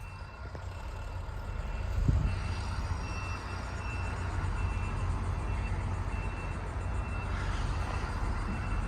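Faint high beeps of a vehicle's reversing alarm, repeating at a steady rhythm, over a low rumble of traffic and wind, with a low thump about two seconds in.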